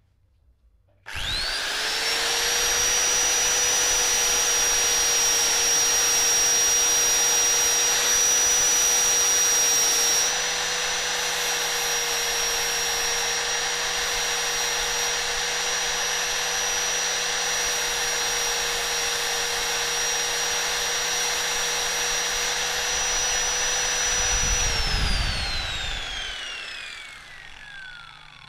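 Electric angle grinder starting up about a second in and running at a steady high whine while its sanding disc grinds the edge of a brass ring. Near the end it is switched off and spins down, its whine falling in pitch as it fades.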